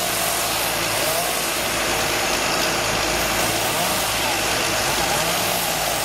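Bobcat skid-steer loader's engine running as the machine works, its pitch rising and falling repeatedly as it is throttled.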